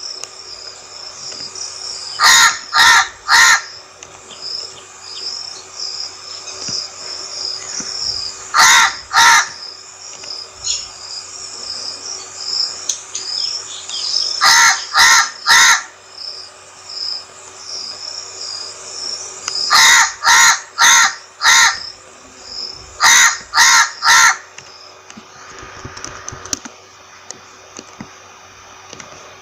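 Crow cawing in five bouts of two to four harsh caws, spaced several seconds apart, over a steady, rapid, high chirping. The chirping and cawing stop a few seconds before the end, leaving a faint hiss.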